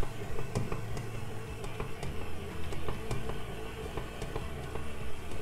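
Stand mixer running steadily at low speed, its dough hook kneading dough as butter is worked in.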